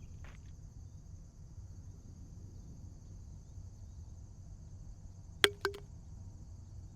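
Steady high drone of insects, such as crickets, over a low rumble. About five and a half seconds in, a sharp click, followed within a quarter of a second by two softer clicks.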